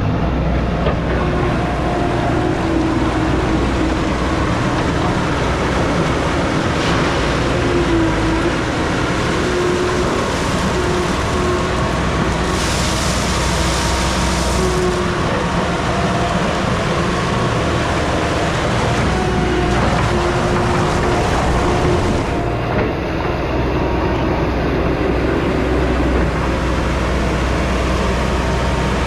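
John Deere 260 skid steer's diesel engine running steadily, with a whine that shifts in pitch as the machine is worked. A hiss lasting about two seconds comes near the middle.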